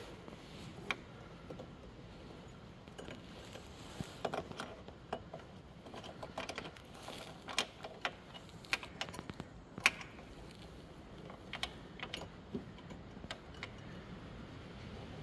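Irregular small clicks and light taps of small plastic and metal car parts being handled and pressed into place by hand, most frequent in the middle, with one sharper click about ten seconds in.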